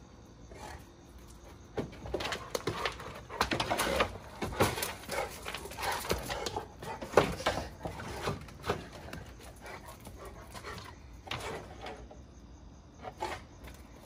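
A Rottweiler jumping and scrabbling up a wooden privacy fence after an opossum: a dense run of scratches and thumps on the boards from about two seconds in to about nine seconds, then a few more, spaced out, near the end.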